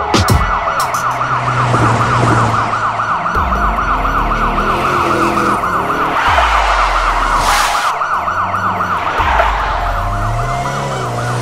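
Police siren in fast yelp mode, a quick rising-and-falling wail repeating several times a second, with car engines revving and easing off underneath.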